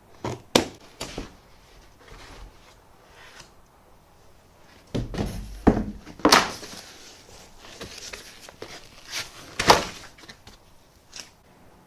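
A 3D printer's cardboard shipping box and packaging being opened and handled: scattered knocks, scrapes and rustles, with a few sharper knocks.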